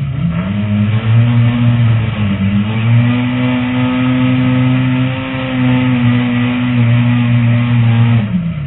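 Lightning Rod race car's engine, heard from inside the cockpit, revved up and held at high revs while the car spins a doughnut. Its pitch dips briefly once, then falls away near the end as the throttle comes off.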